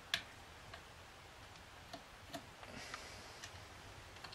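Small clicks and taps of a rib-mounted red dot sight being worked loose on a shotgun's rib by hand, with its grub screws already loosened. A sharp click comes just after the start, then several fainter clicks and a brief scrape.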